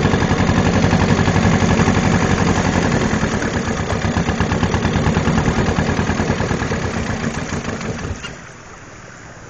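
Small boat engine running with a rapid, even pulsing beat, easing down in level and then cutting off abruptly about eight seconds in.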